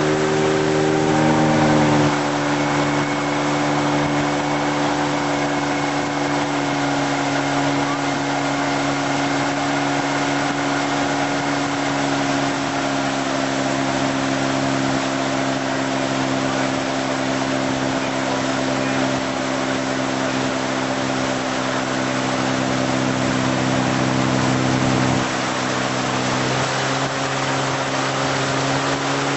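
Tow boat's engine running steadily at towing speed, its pitch dropping a little about two seconds in and shifting slightly again near the end, over a steady hiss.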